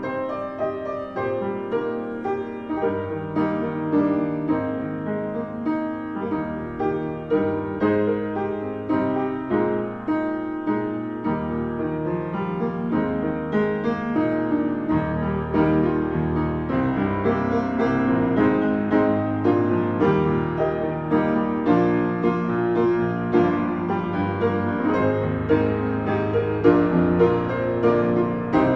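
Solo piano playing a slow, chordal piece, with the chords changing about every second.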